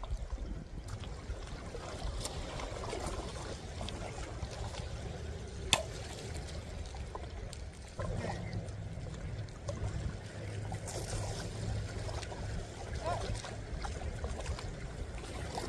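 Water trickling and sloshing while a magnet is dipped in shallow water, with wind rumbling on the microphone. A single sharp click comes a little over a third of the way in.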